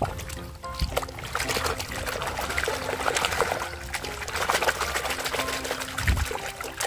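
Muddy water splashing and sloshing in a plastic basin as a hand swishes a plastic toy motorcycle through it to rinse off the mud, with continuous small splashes.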